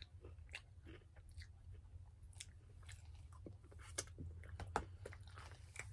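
Faint chewing of a mouthful of salad, with scattered small crunches and clicks.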